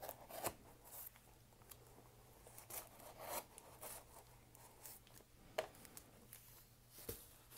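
Knife blade slitting clear packing tape along the edge of a cardboard mailing box: faint scratchy strokes and crinkling, with a few short sharp ticks.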